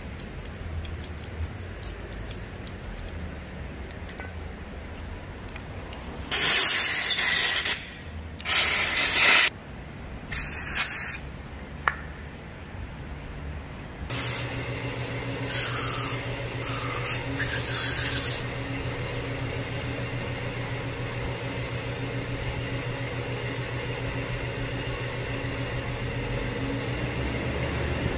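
About six short, loud hissing sprays, each half a second to a second and a half long, blown in spurts at a part being cleaned. About halfway through, a steady electric motor hum starts and keeps running.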